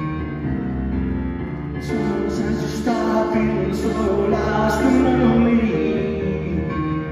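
Live solo performance on a Roland electric keyboard, playing the song's bass line and chords, with a man's voice singing over it from about two seconds in.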